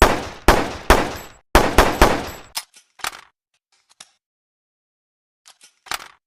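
PPM-9 handgun gunshot sound effect: six shots in about two seconds, each with a trailing decay, followed by a few quieter clicks and clacks.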